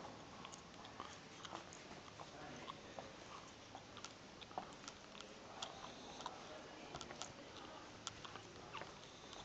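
Faint, irregular small clicks and ticks over quiet room tone.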